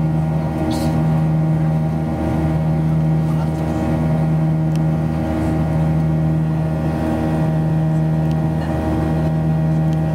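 Boeing 737 jet engines heard from inside the cabin during the climb after takeoff: a steady drone made of several held tones over a low rumble. The lowest tone swells and fades every few seconds, giving a slow pulsing.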